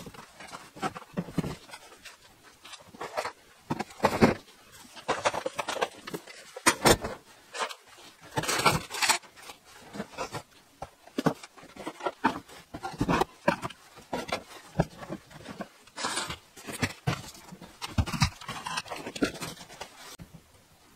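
Irregular knocking, clattering and scraping of wooden boards and metal door frames being shifted in a stack and pulled out by hand.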